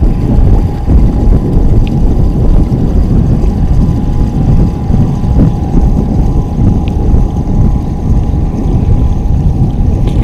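Loud, gusting wind buffeting an action camera's microphone on an open boat, with a faint steady whine under it.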